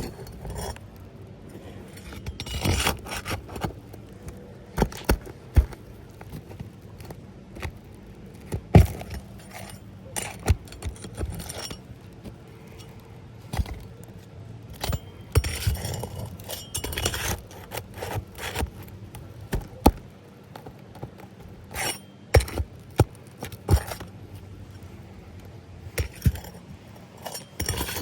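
Hand work on roof shingles: irregular sharp knocks, clicks and scrapes of tools and loose material being handled.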